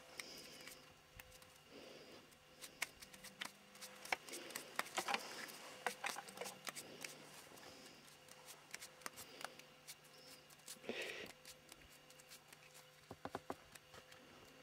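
Faint, scattered small clicks, scrapes and rustles of handling noise from someone sitting at an ice-fishing hole working a short rod, with a brief louder rustle about eleven seconds in.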